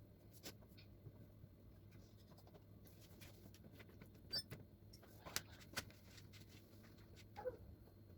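Near silence over a faint low hum, broken by a few light clicks and taps from food and utensils being handled in the kitchen.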